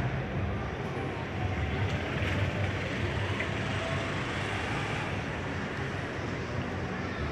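City bus diesel engine running close by, a steady low rumble mixed with street noise.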